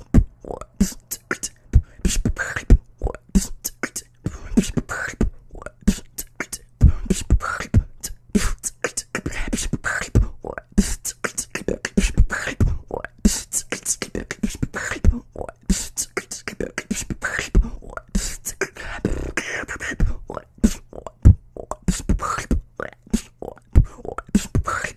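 Beatboxing: a fast, irregular run of sharp mouth clicks, snares and kicks over deep bass hits, showcasing the misfire and OD bass sounds.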